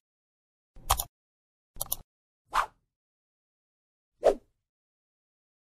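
Animated subscribe-button sound effects: two sharp click-like hits about a second apart, then two short pops that drop in pitch, the last about four seconds in, with dead silence between them.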